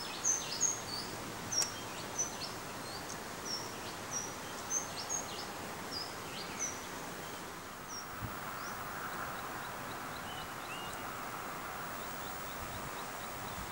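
Outdoor park ambience: birds chirping in short, high, repeated notes for the first half. After that, a steady hiss of background noise carries a faint, fast, regular ticking, typical of an insect.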